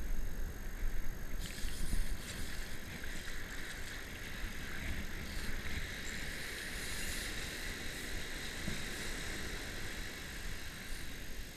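Spinning reel being cranked to bring in a hooked fish on a bent surf rod, a steady whirring band from about a second and a half in until near the end, over wind on the microphone and surf washing across the sand.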